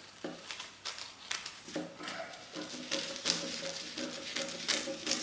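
Scissors cutting lengthwise through crepe paper: a run of crisp snips, about two to three a second.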